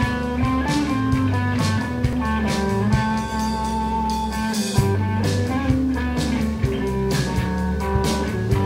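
Studio recording of a rock band playing an instrumental passage: electric guitars over bass guitar and a drum kit, with no singing.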